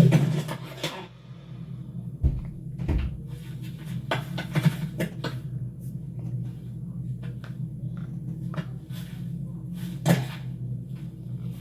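Animated-film sound effects: a steady low machine-like hum under scattered clunks, rattles and knocks, with one louder knock about ten seconds in.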